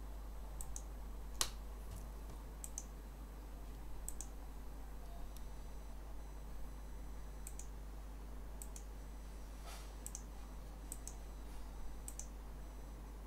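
Computer mouse button clicks: a dozen or so single clicks at irregular intervals, over a low steady electrical hum.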